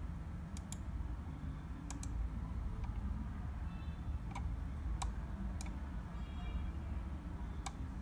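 Computer mouse buttons clicking about eight times, some in quick pairs, over a steady low rumble.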